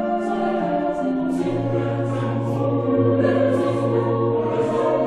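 Background choral music: voices singing slow, sustained chords, with a low held note coming in about a second and a half in.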